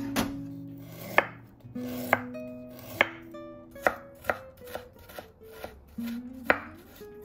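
Kitchen knife julienning fresh ginger on a wooden cutting board: sharp single chops onto the board, about one a second, with lighter cuts between.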